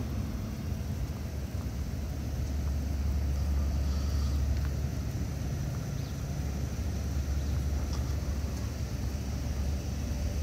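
Steady low rumble of outdoor street ambience, with a few faint clicks.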